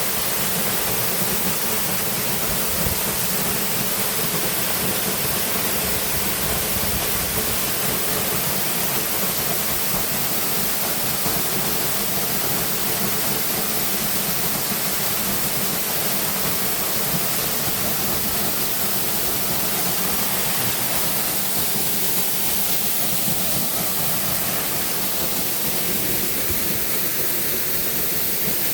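Waterfall and river water rushing steadily, an unbroken noise with plenty of hiss.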